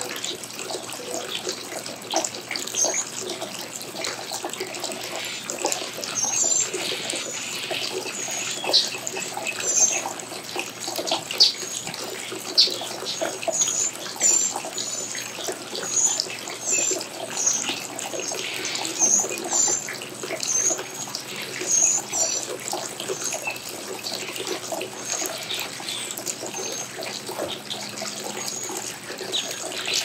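Small birds chirping and chattering at a garden seed feeder, with sharp high chirps standing out every two to three seconds over a dense, steady hiss.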